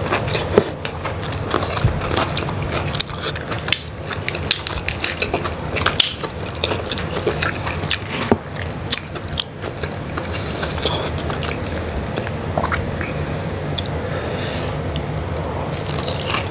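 Close-miked wet eating of saucy giant prawn meat: chewing and lip smacking, full of irregular sharp clicks.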